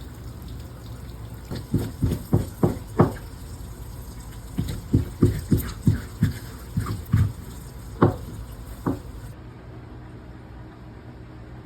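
Water splashing in short quick strokes: a run of about five, then a run of about eight, then two single splashes near the end.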